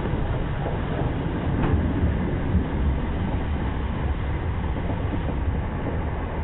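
Passenger train running along the line, heard from a coach window: a steady low rumble of wheels on rail mixed with rushing air, with one sharp click about two seconds in.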